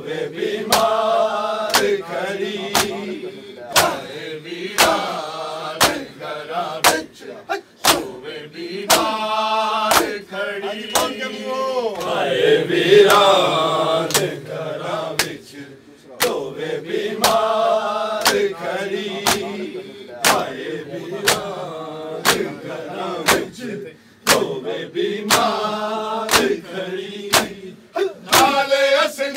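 Shia matam: a crowd of men beating their bare chests with open hands, a steady rhythm of sharp slaps, under loud group chanting of a mourning lament (noha).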